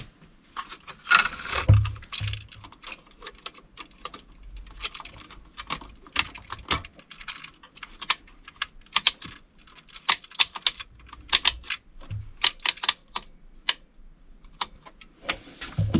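Collated drywall screw strip being fed by hand into a Makita autofeed screwdriver attachment: a run of sharp, irregular plastic-and-metal clicks and rattles, often several in quick succession.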